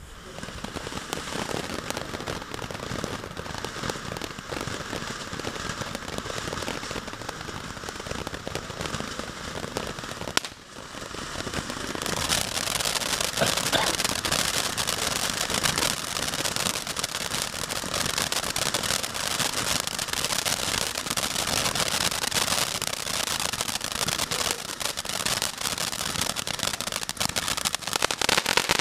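A 200 g ground fountain firework burning, with a steady hiss of spraying sparks. About twelve seconds in it grows louder and brighter, with dense crackling.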